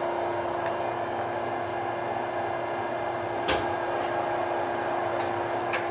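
Cincinnati-Milacron R-77 universal cylindrical grinder running its automatic pick cycle with the table traversing: a steady machine hum with a constant tone, and two sharp clicks a couple of seconds apart.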